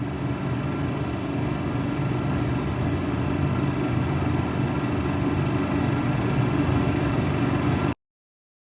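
A small engine running steadily, growing slightly louder, then cutting off abruptly near the end.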